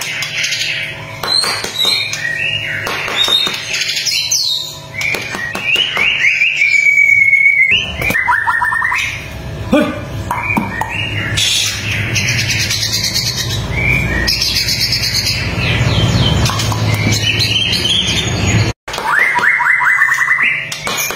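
White-rumped shama singing a loud, varied song of sliding whistles, a held clear note and rapid runs of notes. A steady low rumble sits underneath for several seconds in the second half.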